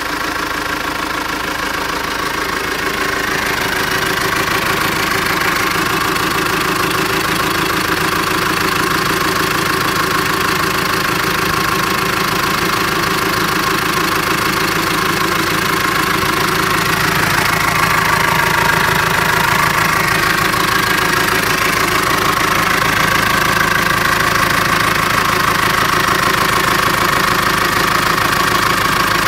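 2013 Holden Colorado's 2.8-litre four-cylinder turbo-diesel engine idling steadily.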